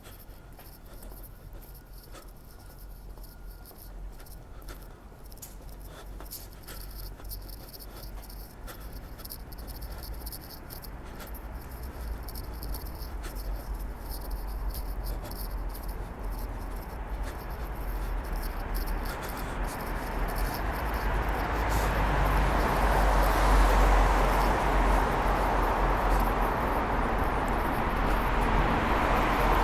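Traffic rumble in a tunnel, growing steadily louder through the second half as a vehicle approaches, over a constant low hum. There are faint scattered clicks in the first half.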